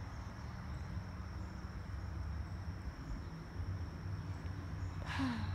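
Insects trilling in the yard: one thin, steady, high-pitched tone, over a low rumble. A crow gives a short, louder, falling caw near the end.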